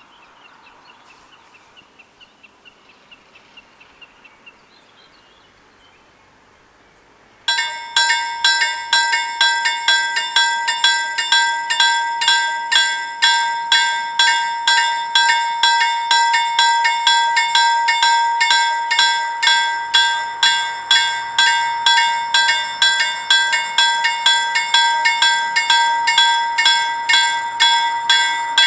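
Level crossing warning bells start ringing suddenly about a quarter of the way in: a loud, fast, even run of metallic strokes on one steady pitch. They signal an approaching train, with the crossing barriers lowering.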